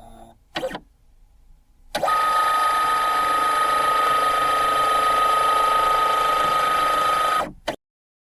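A continuous electric alarm-type ringing sound effect, one steady high tone over a buzzy rattle, starting about two seconds in, holding for about five seconds and cutting off abruptly. Two short blips come before it.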